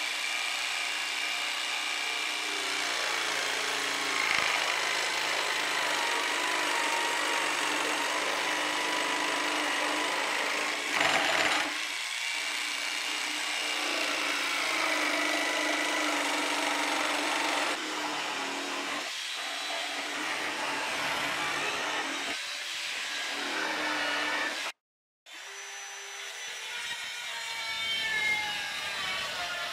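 Electric jigsaw cutting through a wooden board, a steady buzz whose pitch wavers slightly as the blade works through the wood. Near the end, after a short break, a small circular saw runs with a whirring whine that rises in level.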